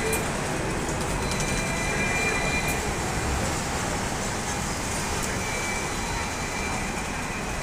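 Hong Kong Tramways 7th-generation double-decker tram running along street rails past and away, a steady rumble of wheels on track with a few sharp clicks in the first three seconds, mixed with city traffic.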